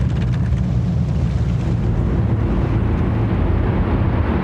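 The Martin Mars flying boat's four radial engines running at high power in a steady, dense drone as the hull planes across the water.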